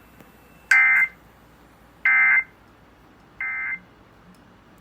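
Emergency Alert System end-of-message signal: three short bursts of SAME digital data tones, each about a third of a second long and about a second apart, the third quieter. It marks the end of the alert message.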